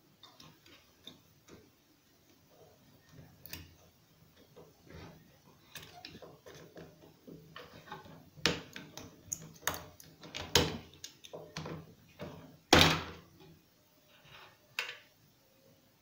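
Irregular clicks, taps and scrapes of a screwdriver against the microwave oven transformer's input terminals as the spade connectors are worked loose. A sharper knock comes about 13 seconds in.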